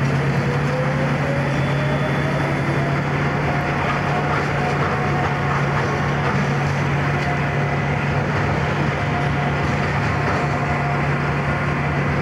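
Steady diesel engine drone of a Tamper P811S track renewal train's tie-handling gantry crane as it travels along the flatcars of concrete ties. A whine over the drone rises slightly over the first few seconds and then holds.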